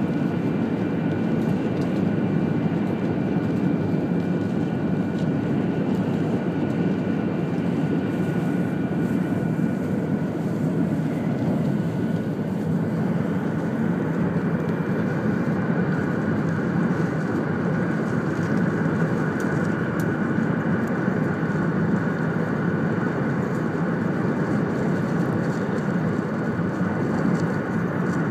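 Inside the passenger cabin of a 200 series Shinkansen running at speed: a steady rumble of the train on the track, with a faint high whine.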